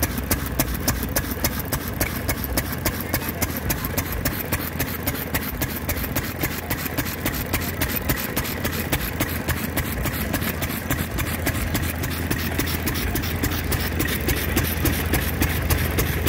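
Antique stationary gas engine running with a steady, regular beat as it drives a drag saw, the long crosscut blade stroking back and forth through a log.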